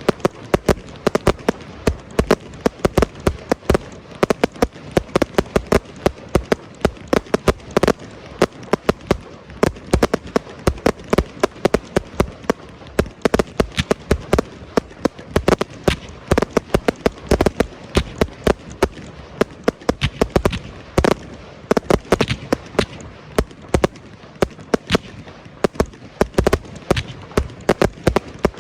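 Aerial fireworks display: a rapid, irregular series of sharp bangs, several a second, over a continuous crackling din of shells bursting.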